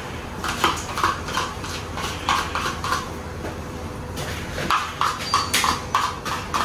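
A utensil knocking and scraping against a container, getting the last of the sour cream out: two runs of sharp taps, about three a second, with a short pause between them.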